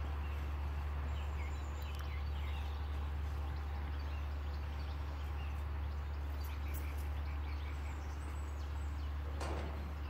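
Steady low drone of a distant farm tractor pulling a slurry tanker across a field, with faint bird chirps now and then.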